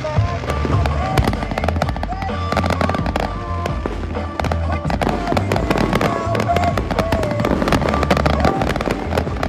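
Fireworks display: many quick bangs and crackles going off in close succession over music with a wavering melody and a steady bass line.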